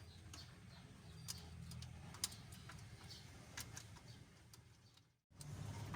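Faint, scattered light metallic clicks and taps of the 4D56 engine's rocker arm assembly and its bolts being handled and set onto the cylinder head, over a low steady hum. The sound cuts out for a moment near the end.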